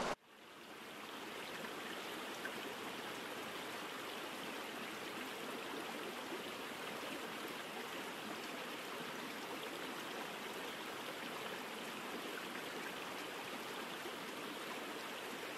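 A small mountain stream flowing steadily: an even rush of running water that fades in over the first second and then holds level.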